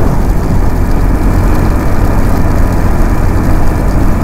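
Motorcycle on the move: its engine running steadily under a loud, even rush of wind over the microphone.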